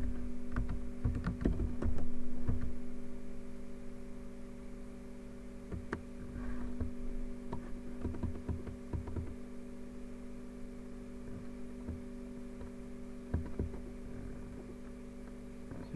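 Computer keyboard keys clicking as a command is typed, in a quick cluster of key presses over the first two seconds or so, then a few scattered key presses later. A steady electrical hum runs underneath.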